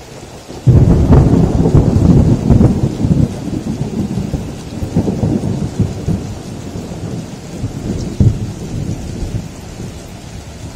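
A thunderclap breaks in suddenly about a second in and rumbles on for several seconds, with a further roll of thunder near the end, over steady heavy rain.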